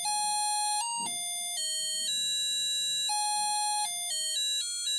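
C51 microcontroller laser harp kit playing its built-in demo tune through a small speaker: a simple melody of single buzzy electronic notes. The notes step up and down, some held about a second and others quick, with a run of short notes near the end.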